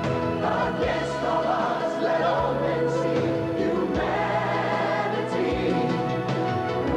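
Background music with a choir singing held chords.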